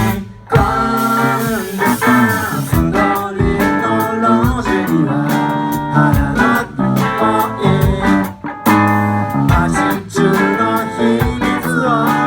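Guitar music, with plucked notes and chords changing quickly.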